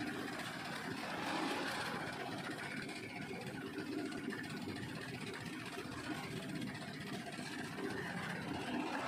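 Steady engine noise of vehicles, like road traffic running in the background.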